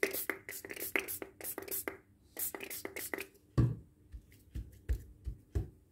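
A damp paper towel handled on a kitchen countertop: a quick run of rustles for the first three seconds or so, then about five soft thumps as a hand folds it and presses it down on the counter.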